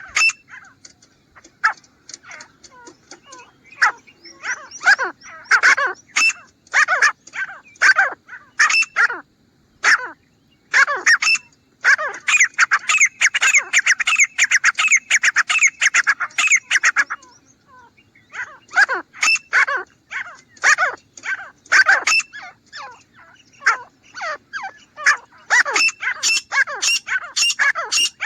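Grey francolin calling: loud, sharp notes repeated rapidly, with a dense stretch of overlapping calls midway and a short pause just after it.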